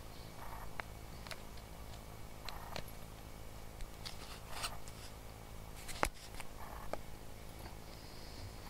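Two Cavalier King Charles Spaniels mouthing and tugging at a plush toy: scattered soft clicks and fabric rustles, with one sharper click about six seconds in.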